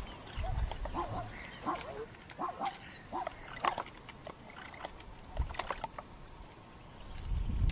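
A string of short animal calls, about one every half second, with low rumbling at the start and near the end.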